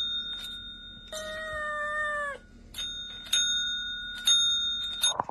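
A kitten rings a desk service bell with its paw, the ring lingering between presses. In the middle it gives one long meow of about a second, then presses the bell four more times.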